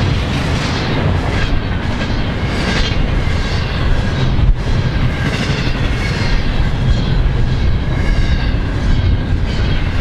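Double-stack intermodal container train passing close by at speed: a loud, steady rumble and rush of steel wheels on rail. The hiss swells regularly, about every two-thirds of a second, as the cars go by.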